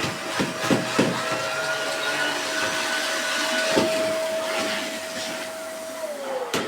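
Vacuum cleaner running with a steady whine and hiss, with sharp clicks as bits knock through the nozzle; about six seconds in it is switched off and the motor's whine falls in pitch as it winds down, with a loud click near the end.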